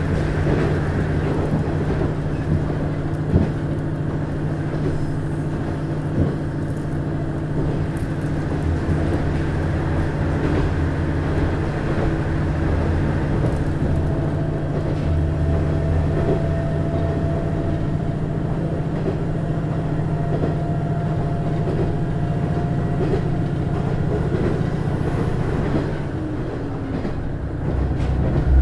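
JR East KiHa 110-series diesel railcar with its DMF14HZA engine running, heard from inside the car: a steady engine drone over the rumble of wheels on rail, with a few sharp knocks early on. Near the end the sound dips briefly, then grows louder with a deeper engine note.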